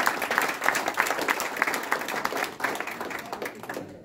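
Small audience applauding, a dense patter of hand claps that thins out and fades near the end.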